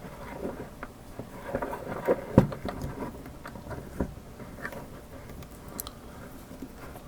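Small metal clicks and taps of a Master Lock 911 padlock and lockpicking tools being handled, with a sharper knock about two and a half seconds in and another at about four seconds.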